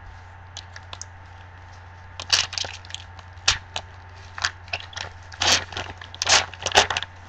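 A foil trading-card pack being torn open and crinkled: a run of sharp crackling rips starting about two seconds in, with several louder tears near the end.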